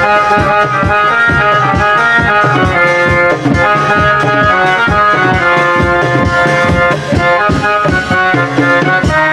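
Instrumental break of a Bengali folk stage song: a busy hand-drum rhythm under a held melody line, without singing.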